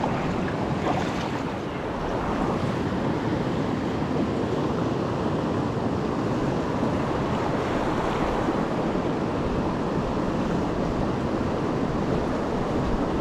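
Steady rush of a flowing mountain creek.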